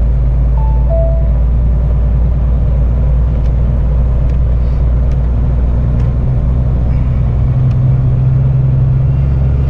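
Semi truck's diesel engine running steadily, heard inside the cab while driving, its note changing about three-quarters of the way through. A short falling two-note beep sounds about a second in.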